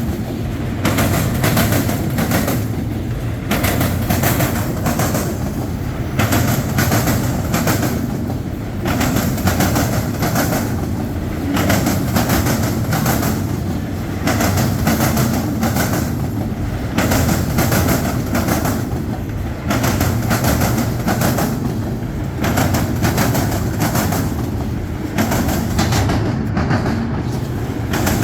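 Freight train cars rolling past, steel wheels clicking over rail joints in a steady, repeating rhythm over a continuous rumble.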